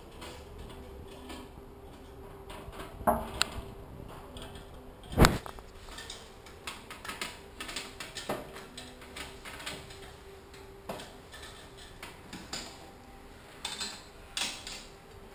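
Scattered clicks, knocks and rattles of handling around an engine test stand while the engine is off, with one loud knock about five seconds in. A faint steady hum runs underneath.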